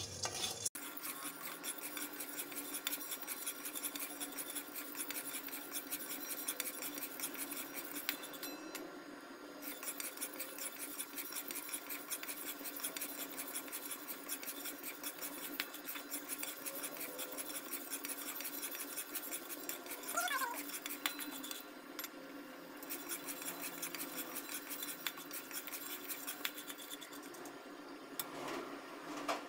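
A spatula stirring and scraping dry corn kernels around an aluminium wok: a steady rattle and scrape of kernels against the metal as they heat in butter. The stirring eases off briefly twice.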